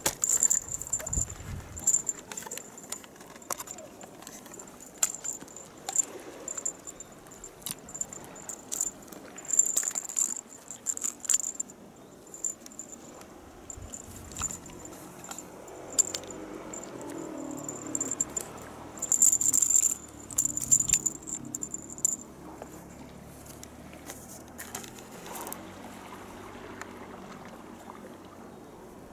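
Cat-teaser toy being shaken and flicked about, with a high jingle and sharp clicks and rattles coming in spurts; it stops about two-thirds of the way through.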